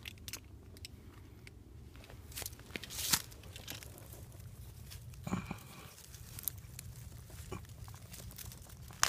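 Close rustling and crackling of dry brush and leaves being pushed and handled, with scattered short snaps. The sharpest snap comes about three seconds in.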